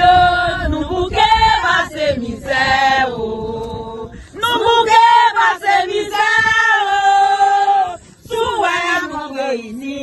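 A group of women singing together in chorus, long held notes in phrases a few seconds long, with brief breaks between phrases.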